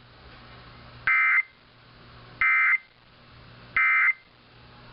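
Three short bursts of buzzy, warbling Emergency Alert System data tone, each about a third of a second long and spaced about a second and a third apart, over faint radio hiss. These are the end-of-message code bursts that mark the end of a weather radio alert.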